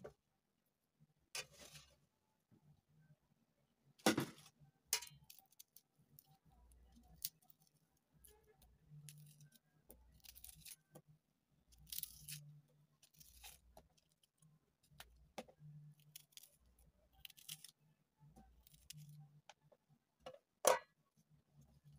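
Kitchen knife work by hand: scattered short scrapes and clicks as a knife cuts a tomato and peels and trims a red onion, with two sharper knocks, one about four seconds in and one near the end.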